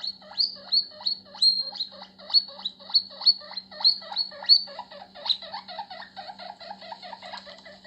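Recorded guinea pig wheeking, played back through a phone's speaker. A rapid series of high squeaks, about two or three a second, turns into quicker, lower chirps about halfway through.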